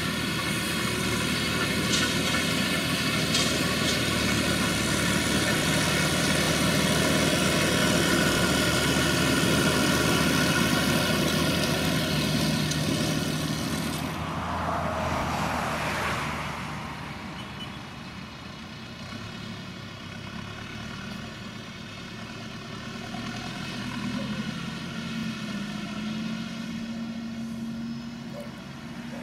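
Tractor engine running steadily while pulling a Krone round baler, with the baler's machinery running with it. About halfway through the sound drops to a quieter tractor engine, which grows louder and rises in pitch near the end.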